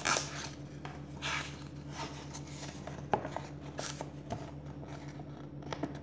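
Paper pages of a picture book being handled and turned, soft rustles and brushes scattered through, over a steady low hum.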